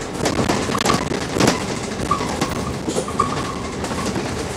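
Inside a Scania K310UD double-decker bus on the move: a steady rumble of engine and road noise, with frequent irregular rattles and clatters from the interior fittings.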